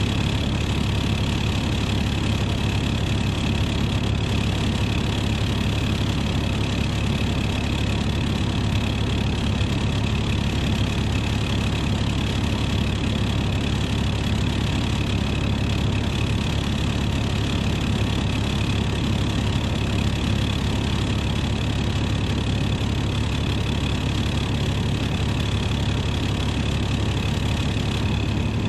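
2007 MCI D4500CL coach's Caterpillar C13 ACERT inline-six diesel idling steadily, heard from inside the coach, with a steady high whine over the low drone.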